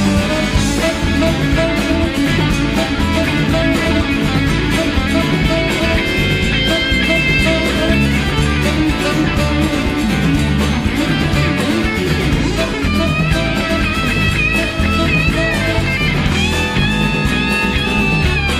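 Live rock-and-roll band playing an instrumental break: an electric guitar takes a solo of held, bending high notes over drums and bass.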